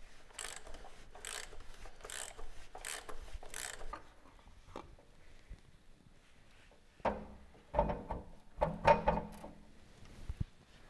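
Ratchet clicking in a series of short, even strokes as the large oil filter housing cap of a VW Golf Mk7 1.6 TDI is unscrewed with a 32 mm socket. This is followed by a few louder knocks and clinks of the tool and housing being handled.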